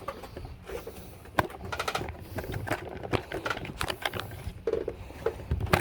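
Irregular clicks, knocks and rustles of the camera being handled and moved closer.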